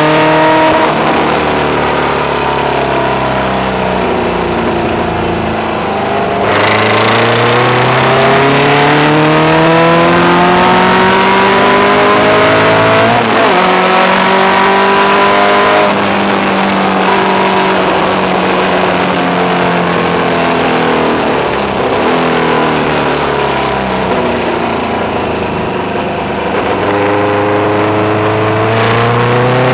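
Car engine heard from on board, accelerating through the gears: its pitch climbs, drops at each gear change, and climbs again, several times over.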